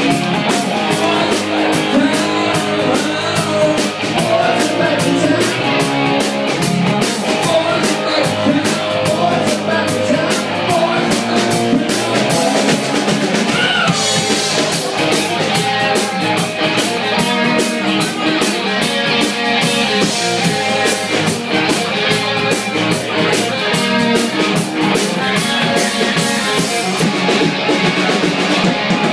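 Live rock band playing: electric guitars over a steady drum-kit beat, with a woman singing lead.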